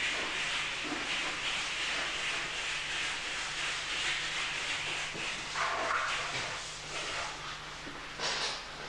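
Steady hiss with long-handled brushes scrubbing the side of a fire engine during washing, and a brief louder scrape or splash near the end.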